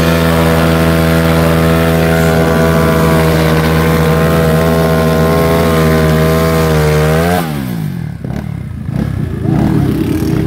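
Small air-cooled single-cylinder motorcycle engine held at steady high revs while the rear tyre spins in a burnout. About seven seconds in the revs fall sharply, and the engine then runs lower and unevenly, with a couple of blips back up near the end.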